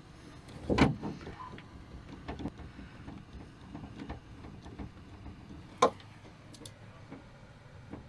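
Knocks and clicks from a hand working inside the door cavity of a 2010 Honda Civic, reaching for the screws that hold the door lock: a dull thump about a second in, a sharp click just before six seconds, and light taps between.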